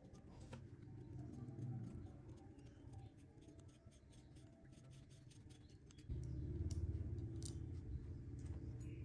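Faint clicks and scraping of a thin metal rod or screwdriver working at a screw on a coil tattoo machine's frame, over a low hum that gets louder about six seconds in.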